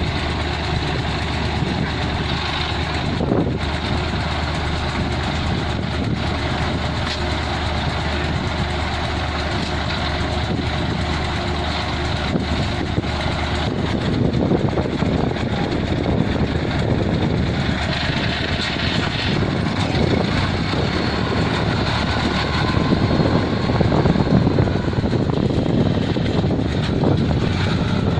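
Engine of a Kubota harvesting machine running steadily, with a low hum; about halfway through the sound turns rougher and grows a little louder.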